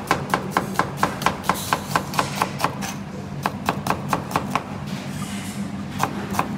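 Kitchen knife slicing a halved onion on a plastic chopping board at normal working speed: quick, even knocks of the blade on the board, about four or five a second, with a pause about three seconds in and a few more strokes near the end.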